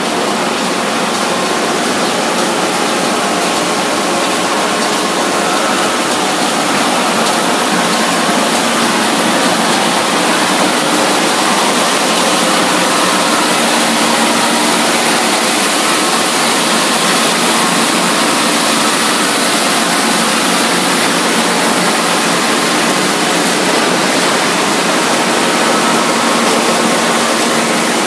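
Heavy-duty wide belt sanding machine line running: a loud, steady mechanical whir with a few faint steady tones in it.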